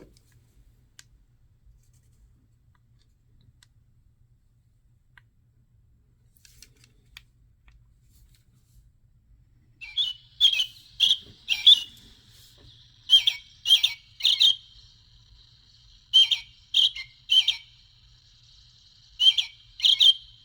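Recorded birdsong played back through the small speaker of an Identiflyer birdsong wand: loud, clear whistled notes in groups of three or four, about half a second apart, starting about halfway in. Before that there are only a few faint clicks.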